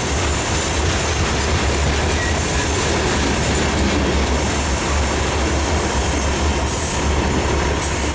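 Covered hopper cars of a freight train rolling past close by, their steel wheels running on the rails in a steady loud rumble. The sound drops off near the end as the last car goes by.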